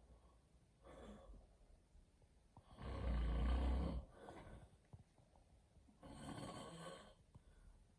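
Snoring: two loud snores about three seconds apart, the first the loudest with a deep rumble, with fainter breaths between them.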